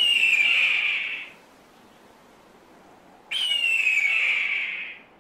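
Hawk screaming twice: two long, hoarse calls, each starting suddenly and falling in pitch over about a second and a half. The second call comes about three seconds after the first.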